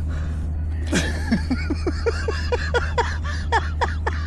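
A person laughing in a quick run of short 'ha's, about five a second, each one falling in pitch, over a steady low rumble.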